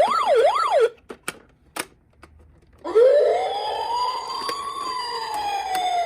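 Toy emergency vehicle's electronic siren. A fast yelp sweeping up and down about twice a second cuts off about a second in, then come a few light clicks. From about three seconds a slow wail rises and falls over about three seconds and begins rising again near the end.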